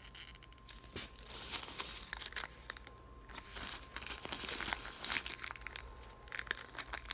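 Packaging crinkling and rustling in irregular bursts as the small parts of a motorcycle power-outlet kit are handled and unwrapped.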